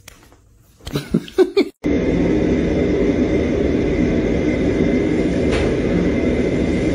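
A kitten giving three or four short, loud meows, followed by a loud steady rumbling noise.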